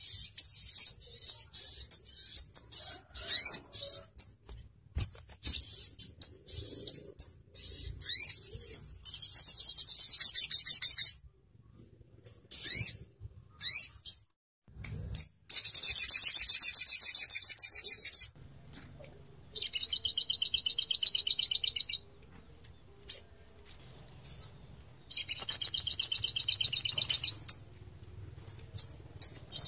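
Olive-backed sunbird (sogok ontong) song: a string of high, sharp chirps and short upward-sweeping notes, broken by four long, rapid trills of two to three seconds each, the "shooting" phrases wanted in a training recording.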